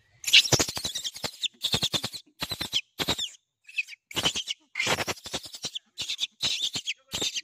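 Young macaques giving rapid, harsh squeaks and squeals in short bursts, one after another, with brief gaps between.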